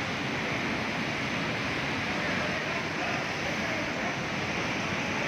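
Fast-flowing floodwater rushing in a steady, unbroken wash of water noise.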